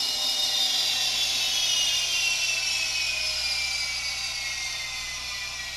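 Rapido N scale Turbo Train's sound decoder playing the gas-turbine shutdown sequence through the model's small speaker: a high turbine whine that falls slowly in pitch and fades as the turbines spool down.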